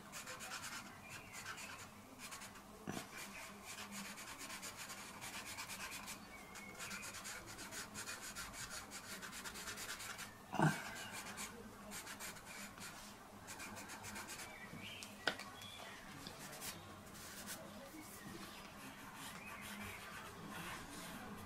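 Pencil rubbing and scratching on sketch-pad paper in short shading strokes. A knock sounds about halfway through, the loudest thing here, and a sharp click a few seconds later.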